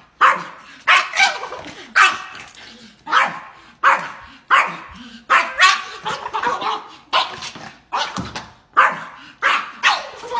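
Yorkshire terrier barking over and over, a quick string of more than a dozen sharp barks under a second apart: excited barking at a squirrel outside the glass door.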